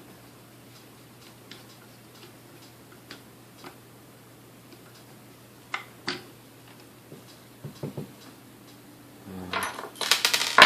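Small clicks and taps of hand work on a vintage stand mixer's parts, with a few sharper knocks and a louder burst of handling clatter about nine seconds in.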